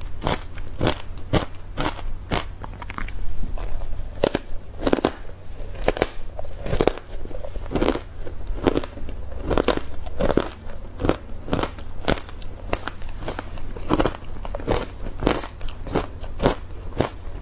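Ice coated in matcha powder being bitten and chewed, a continuous run of sharp, irregular crunches at about two a second.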